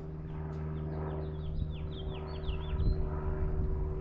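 A bird singing a quick run of short, high, downward-sweeping chirps, over a steady low mechanical hum.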